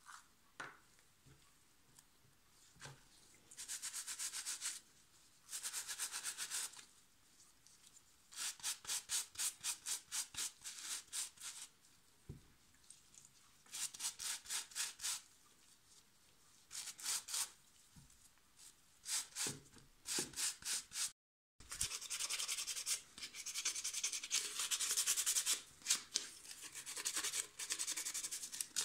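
A stiff hand brush scrubbing model-ship sail pieces in a tub of water, in separate bursts of quick back-and-forth strokes. After a break about two-thirds of the way through, sandpaper rubs almost without pause over the model ship's hull.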